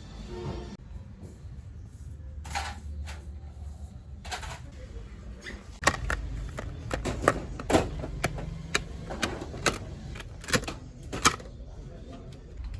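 Irregular sharp clicks and knocks, about a dozen, most of them between about six and eleven seconds in, over a low steady hum: objects being handled and set down.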